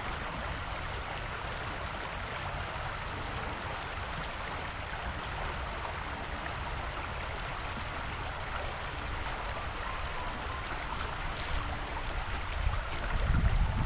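Steady rushing of a flowing creek. Near the end, low wind buffeting on the microphone rises.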